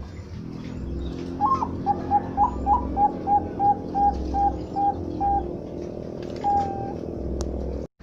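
Perkutut bangkok (zebra dove) cooing: a few rising opening notes, then a run of about a dozen short, evenly spaced coos at roughly three a second, and one longer coo about a second later.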